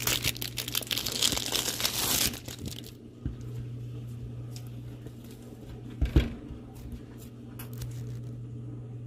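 Hands handling a sheet of store-bought puff pastry dough. There is a dense rustle for about the first two seconds, then softer scattered handling sounds and one thump about six seconds in, over a steady low hum.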